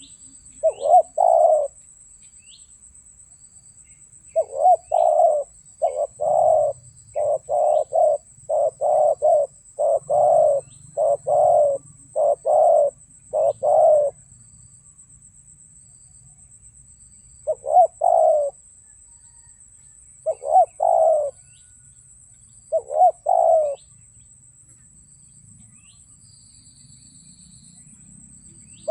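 Spotted doves cooing in repeated low phrases, a run of about ten calls in a row and then a few spaced calls after a pause. A steady high-pitched cricket trill runs underneath, with faint small-bird chirps.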